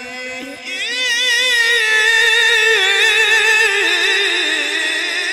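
A male Qari's voice in melodic Quran recitation. About a second in he takes up one long, ornamented note with a wavering vibrato and holds it while the pitch slowly falls.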